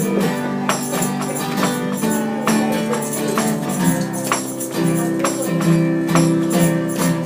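Group instrumental jam: a tambourine jingles and hand percussion and shakers play on the beat over sustained chords, with no singing yet.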